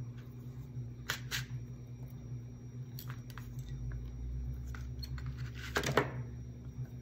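Small clicks and taps of steel needle-nose pliers gripping and twisting thin wire, with a louder clatter just before six seconds in, over a low steady hum.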